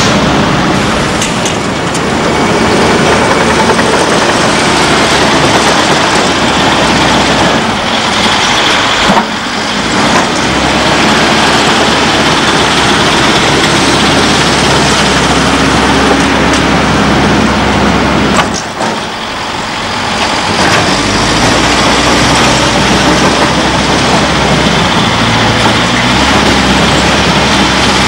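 Heavy diesel earthmoving machines running: a loud, steady engine drone under a dense mechanical noise. It dips briefly twice, and the low engine note grows stronger about two-thirds of the way through.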